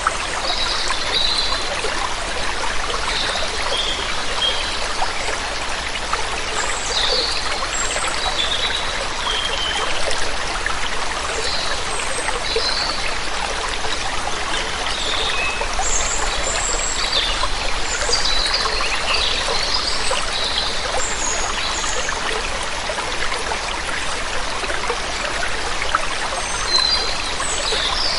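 Steady rush of running water, with birds chirping in short, high calls scattered throughout.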